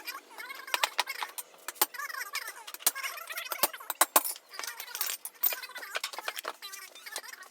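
Steel hand tools clinking and knocking against a motorcycle wheel rim as a worn tubeless tyre is worked off by hand with screwdrivers used as tyre levers: an irregular run of sharp metallic clinks and knocks, with some short squeaks in between.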